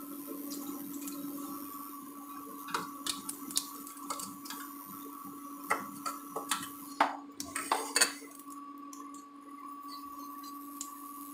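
Clinks and scrapes of a steel bowl and a plastic spoon against a cooking pan as soaked tamarind and jaggery are poured in and stirred into the curry. The knocks come in a scattered run through the middle, over a steady hum.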